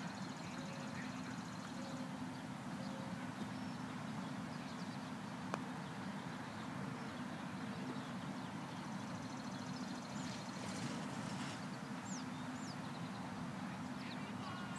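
Outdoor ambience with a steady low hum, one sharp click about five and a half seconds in, and a few short bird chirps near the end.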